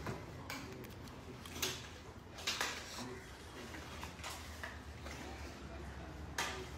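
Cardboard Apple Watch retail box being pulled open and handled on a desk: a few short scrapes and knocks as the box slides apart, the loudest about one and a half and two and a half seconds in.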